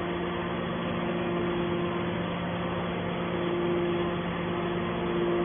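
Horizontal metal baler machinery running with a steady, even hum: a low constant tone with a higher one above it that weakens for about a second in the middle and then returns.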